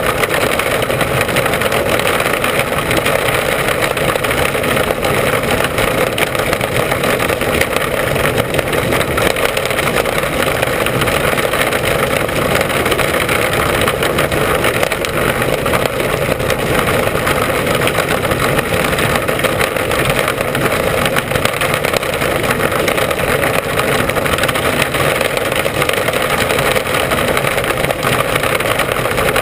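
Mini Sprint race car's engine running hard, heard from the onboard camera during a heat, a loud, steady, dense din that keeps going without a break.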